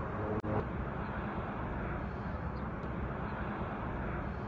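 Steady low rumble and hiss of background noise, like distant traffic, with a brief dropout about half a second in.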